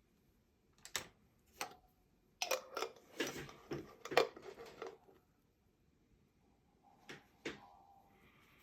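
Light clicks and knocks of small tools or containers being handled and set down on a work surface: two single clicks, a clattering run from about two and a half to five seconds in, then two more clicks near the end.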